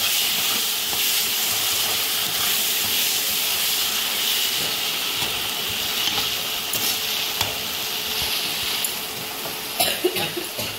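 Onion-tomato masala sizzling with a steady hiss in a kadai while a wooden spatula stirs and scrapes through it, frying the tomatoes until they break down; a few sharper scrapes near the end.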